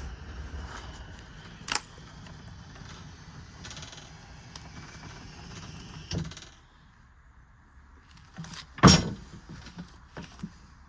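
Truck tail lift's motor running steadily as the platform lowers, ending with a clunk about six seconds in. Near the end comes a loud thump and a few crunching steps on gravel.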